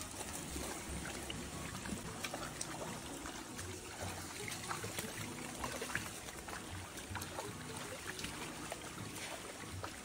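Shallow stream trickling over rocks, with irregular small splashes as a golden retriever puppy is rinsed by hand in the water.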